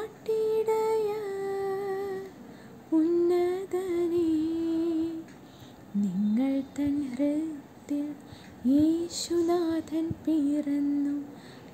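A young woman singing solo with no accompaniment, in held, gliding phrases separated by short pauses, with quicker short notes in the second half.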